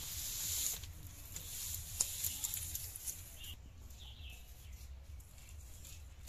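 Dry sticks rustling and clattering as they are pulled from a stacked pile and handled, with a burst of rustling at the start and a run of sharp cracks and clicks about two seconds in. Birds chirp briefly in the middle.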